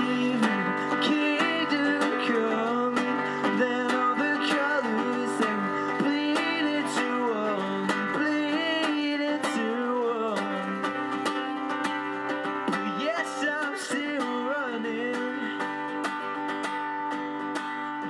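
Music: a song sung to strummed acoustic guitar.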